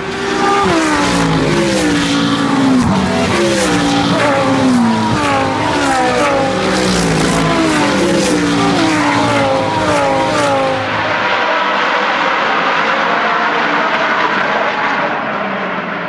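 A pack of GT3 race cars, among them a Lamborghini Gallardo, a Mercedes-Benz SLS AMG and an Audi R8, passing one after another, several loud engine notes overlapping and repeatedly dropping in pitch, with occasional sharp cracks. After about eleven seconds the engine notes die away into a steadier, fainter drone.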